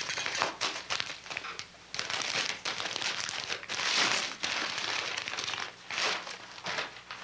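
Paper wrapping crinkling and rustling as a package is unwrapped by hand, in irregular crackly handfuls, loudest about four seconds in.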